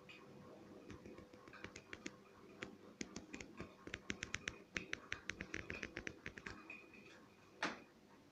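Model railway freight wagons rolling past on the track, their wheels clicking rapidly and irregularly over the rail joints, over a faint steady hum. A single louder click comes near the end.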